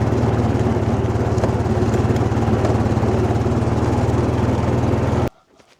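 An engine running steadily at an even speed, which stops abruptly about five seconds in.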